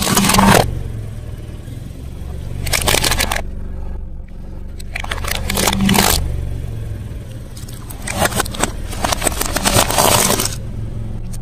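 Car tyre rolling slowly over brittle objects on concrete and crushing them: four bursts of crackling and crunching, the last and longest near the end, over the car engine's steady low hum.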